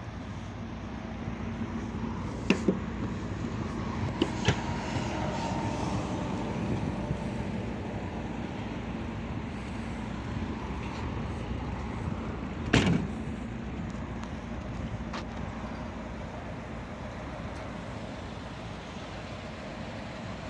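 Fiat Punto hatchback's tailgate being handled: a few sharp latch clicks a few seconds in as it is opened, and one louder thump near the middle as it is shut. All of it sits over a steady low rumble.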